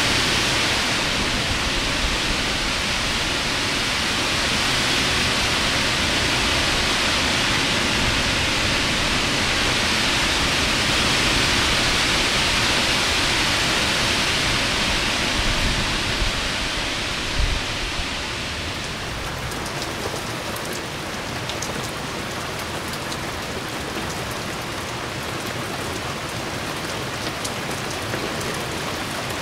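Heavy rain pouring steadily during a severe thunderstorm. About two-thirds of the way through, the sound becomes slightly quieter, with many separate drops spattering close by.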